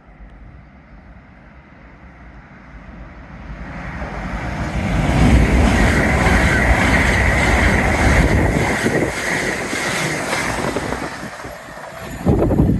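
A train passing through the station: its noise builds up, stays loud for several seconds and then fades. The wheels clatter rapidly over the rail joints, and a steady high-pitched tone rides over the passing noise.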